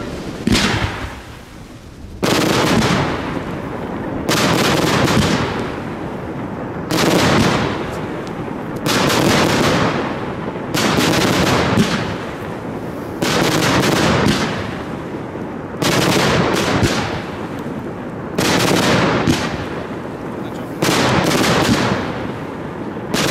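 Fireworks battery heard close to the firing site, firing volleys of shots: a rapid string of reports about every two seconds, about ten volleys in all.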